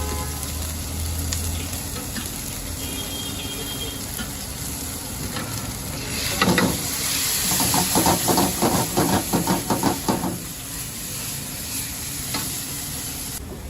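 Food sizzling as it fries in a hot pan. About six seconds in the sizzle surges, then a couple of seconds of quick, rhythmic spatula strokes stir and scrape it.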